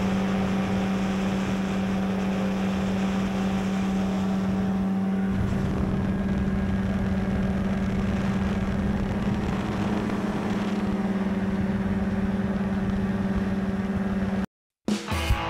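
Paramotor engine and propeller running at a steady pitch in flight, a constant drone, with added low rumble from about five seconds in. The drone cuts off suddenly shortly before the end, and guitar music begins.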